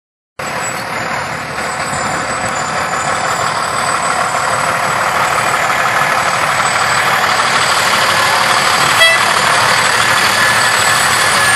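Fire engine driving slowly past close by, its engine running and growing louder as it comes nearer, with one short sharp blip about nine seconds in.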